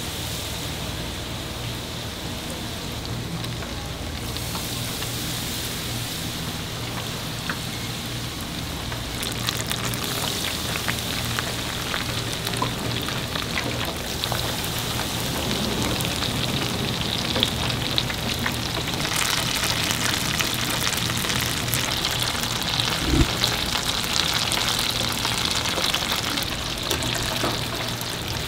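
Hot oil sizzling and crackling as food deep-fries, the crackle thickening about ten seconds in and growing louder past the middle.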